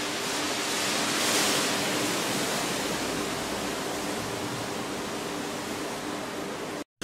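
Steady rushing, hiss-like noise with a faint low hum underneath in the first couple of seconds, cutting out abruptly for a moment near the end.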